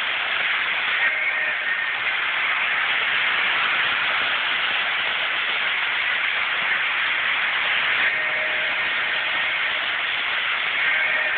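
Toy electric train running around its track: a steady rushing whir from the wheels and motor. A faint whine comes up briefly about a second in and twice more near the end, when the train passes close.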